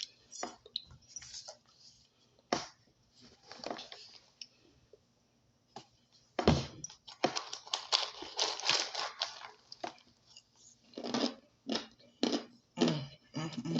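Crunchy chunks of powdered starch being bitten and chewed close to the microphone: sharp, crackly crunches, a few at first, then a dense run of them in the middle, then scattered bites again near the end.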